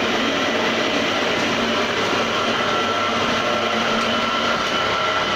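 Homemade tofu-straining machine driven by a small electric motor, running steadily: a continuous mechanical hum with a faint, steady high tone over it.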